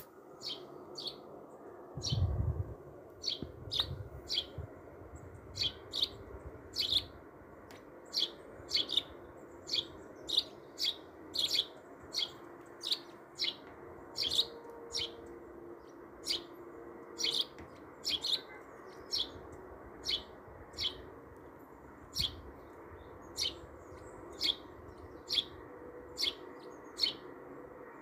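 A bird chirping over and over: short high chirps, about one and a half a second. A low thump about two seconds in.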